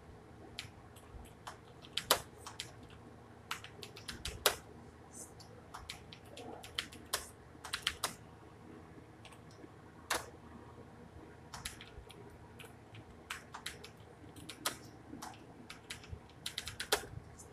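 Computer keyboard being typed on: quiet, irregular keystroke clicks, some in quick runs and some singly, with short pauses between words.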